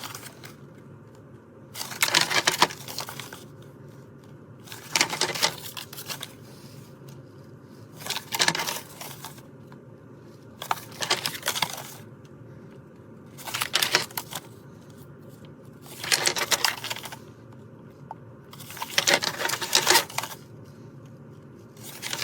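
Plastic safety eyes clicking and rattling in small plastic bags as they are handled, in about eight short bursts roughly three seconds apart.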